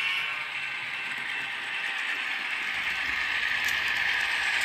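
N scale Rapido BC Rail C40-8M model diesel locomotive and its train running along the track, a steady mechanical whirring and rattling of the small drive and wheels that grows louder near the end as the locomotive comes close.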